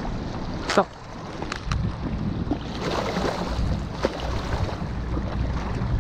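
Wind rumbling on the microphone over small waves lapping against rocks. A single sharp click comes about a second in, with a few fainter ticks after it.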